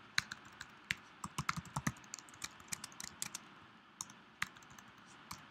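Typing on a computer keyboard: a quick run of keystrokes, then a few single key presses near the end.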